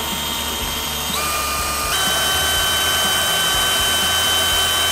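Cordless drill spinning a wooden dowel used as a bit into a brick with garnet abrasive: a steady motor whine over a gritty grinding, stepping up in pitch twice, about one and two seconds in, then holding steady.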